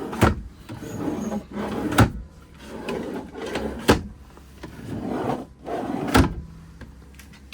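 Motorhome cabinet drawers sliding open and shut. Each stroke ends in a sharp clack, four times, about two seconds apart.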